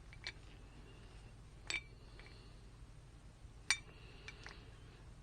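Small metal parts of a manual gear shifter assembly clinking against each other as they are handled and fitted together: about four sharp clinks, each with a brief ring, the loudest about two-thirds of the way in.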